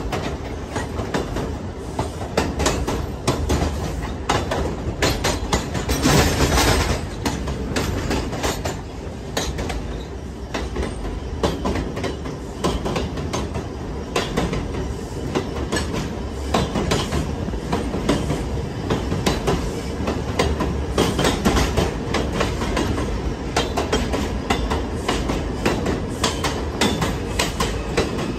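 Subway train running on elevated steel track, with a steady rumble and wheels clicking over rail joints. A louder stretch of rattling comes about six seconds in.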